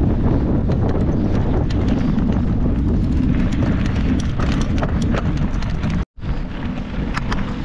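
Mountain bike riding over a bumpy dirt track, heard from a camera mounted on the handlebars: a steady low rumble of wind and tyre noise with frequent sharp clicks and rattles from the bike jolting over the ground. The sound cuts out for a split second about six seconds in, then carries on the same.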